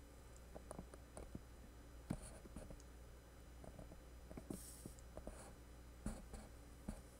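Faint, scattered clicks and light scraping as a soldering iron tip works against the circuit board inside a brushed drone motor. A brief soft hiss comes about four and a half seconds in, over a low steady hum.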